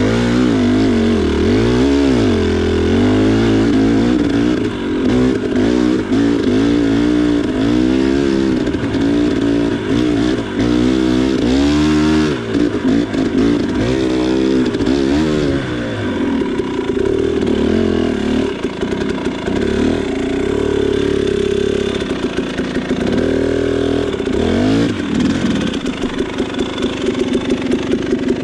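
2019 KTM 300 XC single-cylinder two-stroke dirt bike engine, revving up and down again and again as the throttle is worked on a trail. In the second half it holds a steadier note, with one more rev, and it pulses unevenly near the end.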